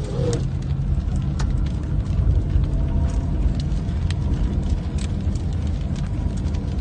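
Steady low rumble of a car driving, heard from inside the cabin, with scattered sharp ticks of falling volcanic ash and grit striking the car.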